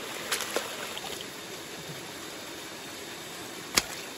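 Steady rush of running water in a shallow stream, with a few small clicks about half a second in and one sharp knock near the end.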